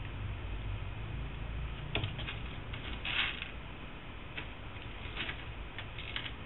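Light scratching and ticking of a kitten's claws on a tabletop as it grapples with its own tail, a brief flurry a little after three seconds, over a steady low hum.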